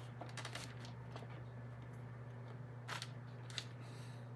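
Faint clicks and taps of a plastic cordless tire inflator and its hose being handled and picked up, a few scattered knocks over a steady low hum.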